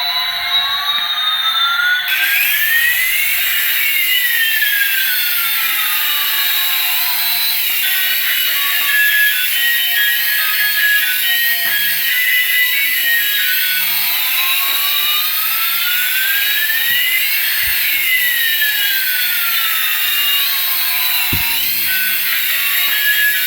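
Electronic sound effects from a battery-operated toy: synthesized tones sweeping up and down at the same time, crossing each other and starting over about every 14 seconds, over warbling high beeps.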